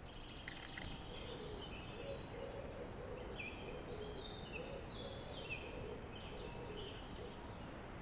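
Wild songbirds singing in woodland: short, repeated phrases of high notes, thickest in the second half, with a softer, lower wavering call beneath, over the trail camera's steady background hiss.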